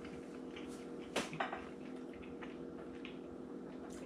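A fork clicking twice against a plate, with a few fainter taps, over a steady low hum.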